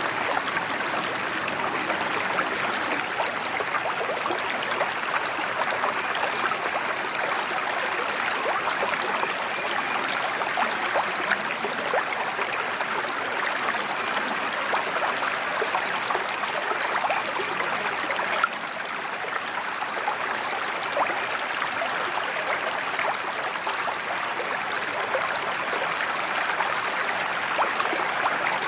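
Water pouring steadily from a sheet-waterfall spillway into a koi pond, a continuous splashing rush.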